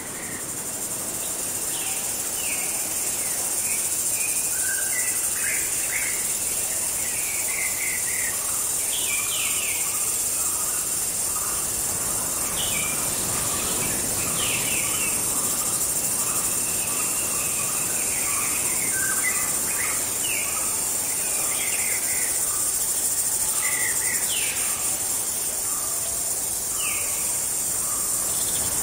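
Jungle night ambience: a steady high-pitched insect chorus with many short chirping calls scattered over it and a quieter repeating call underneath, swelling up over the first few seconds and then holding steady.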